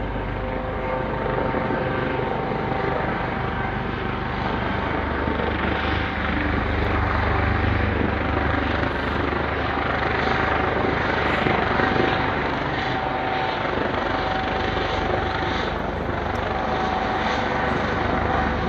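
Police helicopter flying low overhead: continuous rotor and engine noise with steady tones over it, growing a little louder around the middle as it passes above.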